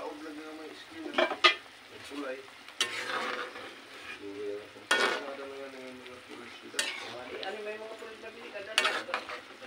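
A metal spatula stirring chicken soup in an aluminium pot, scraping along it and clinking against the pot sharply about six times.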